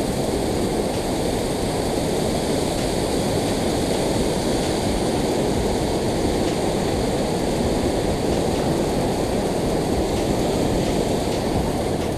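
Water pouring down a concrete dam spillway: a steady, unbroken rush, heaviest in the low and middle range.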